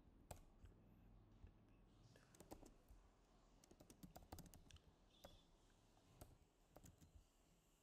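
Faint computer keyboard typing: irregular key clicks, with a quicker run of keystrokes near the middle.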